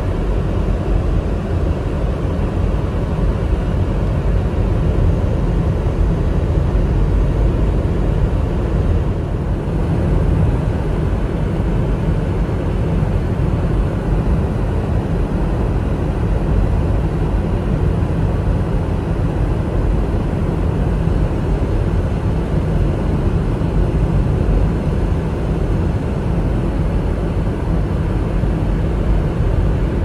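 Steady low rumble inside a moving vehicle's cabin: engine and tyre noise while driving on a snow-covered road.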